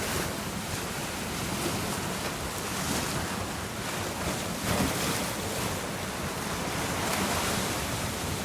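Sea waves washing against a rocky shore, swelling in surges every couple of seconds, with wind buffeting the microphone.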